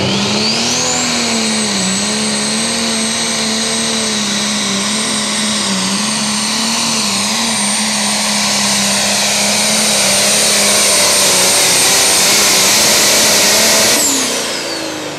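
Turbocharged diesel engine of a John Deere Super Stock pulling tractor running flat out under load as it pulls the sled. A high turbo whine climbs in the first second and then holds over a wavering engine note. Near the end the engine sound drops away sharply as the throttle is released at the end of the pull.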